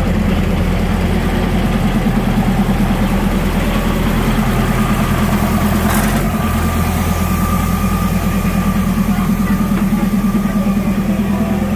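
Underfloor diesel engine of a 1985 NKF diesel multiple unit running, heard from right beside the car as a loud, steady low hum. There is a sharp click about halfway through, and after it a thin steady higher tone.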